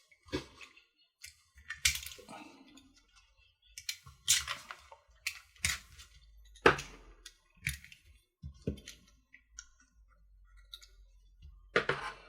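Irregular sharp clicks and snips of hard plastic: RC kit parts being cut from a plastic part tree and handled.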